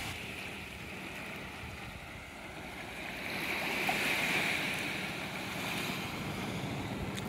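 Small waves washing onto a sandy beach, swelling a little about three to five seconds in, with wind buffeting the microphone and a faint steady low hum underneath.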